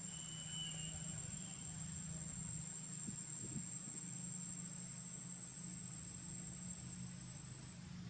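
An insect's steady, high-pitched trill that stops near the end, over a low, steady hum.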